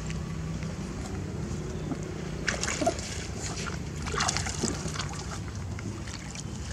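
Water sloshing and splashing in an inflatable paddling pool as a hand stirs it and a baby monkey swims, with splashes at about two and a half and four seconds in.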